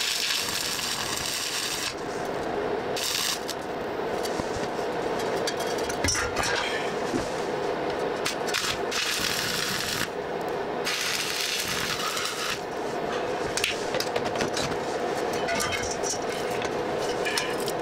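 Stick welder's arc crackling and hissing as a square-tube frame is welded, in several spells of a second to a few seconds. Between the welds come clinks, knocks and scrapes of the metal frame being handled and turned over.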